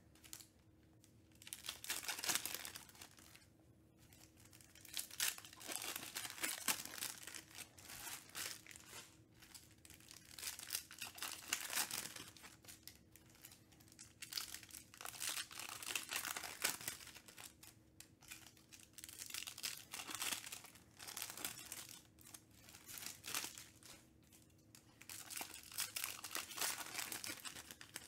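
Foil wrappers of Panini Select basketball card packs being torn open and crinkled by hand. The rustling comes in repeated bursts with brief pauses between them.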